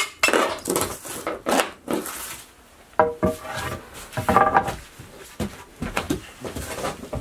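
Hammer and flat pry bar working old wooden floorboards loose: irregular knocks, some with a short metallic ring.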